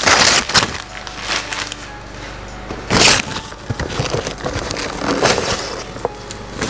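Gift-wrapping paper being torn and rustled off a cardboard toy box, with loud tears at the start and about three seconds in.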